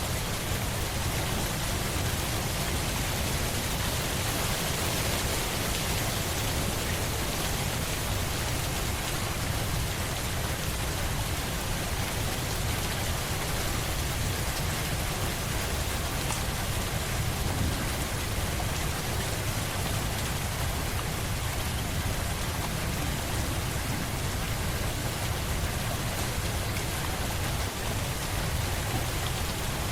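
Steady rain: an even, continuous hiss of falling rain with a deep low rumble underneath, unchanging throughout.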